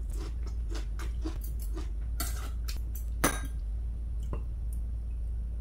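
Chopsticks and a spoon clicking lightly against ceramic plates and bowls while eating, a run of small taps with one sharper clink about three seconds in.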